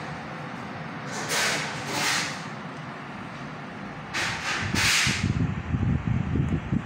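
Steady airflow hiss of a Midea 24,000 BTU ductless inverter wall unit running, broken by short hissing bursts, two about a second in and two about four seconds in. Low, uneven rumbling comes in near the end.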